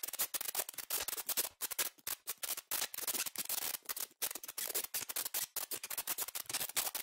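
Crackling sound effect: a dense, irregular run of sharp little clicks and snaps, several every second.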